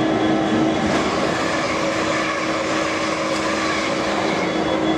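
Class 66 diesel locomotive's two-stroke EMD V12 engine idling steadily while the locomotive stands, with a constant droning hum.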